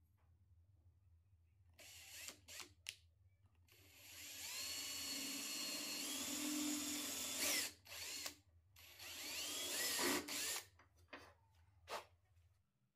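Cordless drill boring into a pine board through the holes of a metal bracket: a few quick trigger pulls, then two longer runs with the motor whine rising and dipping under load, then brief bursts near the end.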